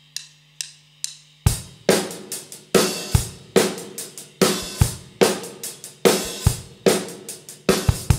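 Background music of a drum kit playing a steady beat: a few light cymbal taps, then the full kit comes in about a second and a half in, with a bass drum and crashing cymbals on each beat.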